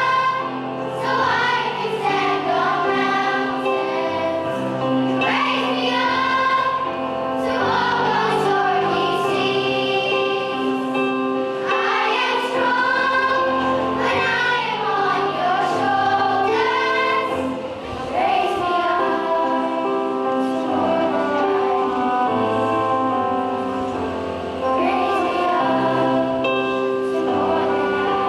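A choir singing a song, with instrumental accompaniment holding steady notes underneath.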